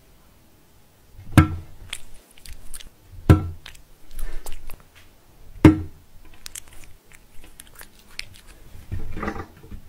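A cat eating a treat, with small crunching and licking clicks, broken by three sharp knocks about two seconds apart.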